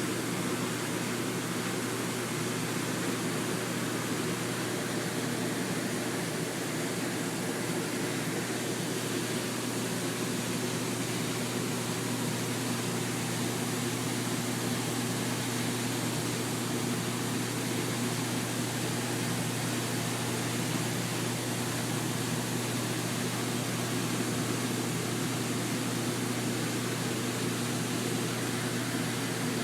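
Steady, unchanging machine hum with an even hiss.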